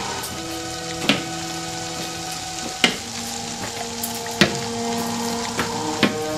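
Background music of slow sustained notes that shift every second or two, with a sharp percussive hit about every one and a half seconds, over a steady crackling hiss.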